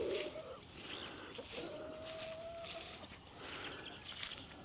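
Quiet rural ambience with distant roosters: one long, steady-pitched crow starting about a second and a half in, among faint bird calls.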